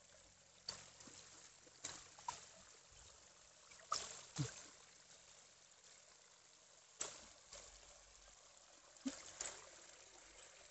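Faint trickle of water running over a low concrete step into a flooded rice paddy, with a few scattered short clicks.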